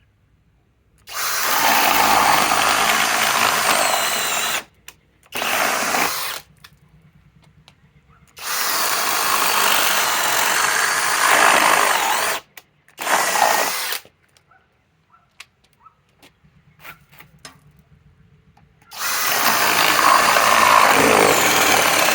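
Masterforce Boost cordless drill boring into wood with an 11/16 bit, in about five runs of one to four seconds with short pauses between. The last run stops abruptly at the end as the drill cuts out under load.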